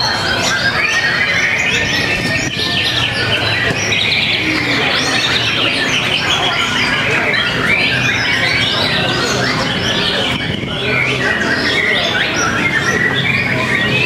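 Several white-rumped shamas (murai batu) singing at once, a dense, unbroken stream of quick overlapping whistles and chirps, over a faint steady low hum.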